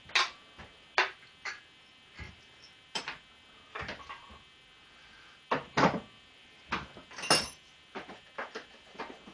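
Irregular clicks, knocks and clatter of hand tools and loose parts being handled while stripping a motorcycle's fairings: about fifteen sharp hits at uneven spacing, loudest near the start, about a second in, and around six and seven seconds in.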